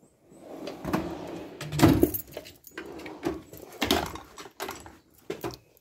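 Metal toolbox drawers sliding on their metal runners, with a series of knocks and clatters as the drawers bump and the hand tools inside shift, the loudest knock about two seconds in.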